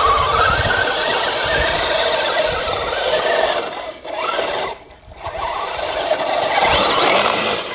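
Electric motor and geared drivetrain of a radio-controlled truck whining as it drives through mud, the pitch rising and falling with the throttle. It drops away briefly about five seconds in, then picks up again.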